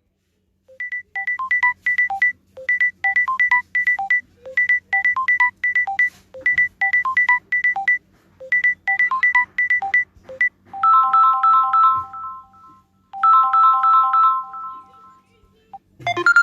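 Samsung Galaxy A21s ringtones playing: a short melody of quick, high plinking notes repeated five times, about every two seconds, then, about eleven seconds in, a different ringtone of held three-note chimes played twice.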